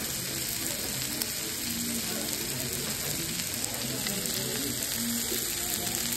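Chicken fajitas with peppers and onions sizzling on a hot cast-iron fajita skillet: a steady crackling hiss.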